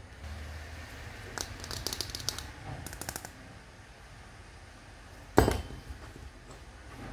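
Small plastic toy kitchen cups clicking and clattering together as they are handled, in two short flurries, then one louder knock about five seconds in as a cup is set down on the tabletop.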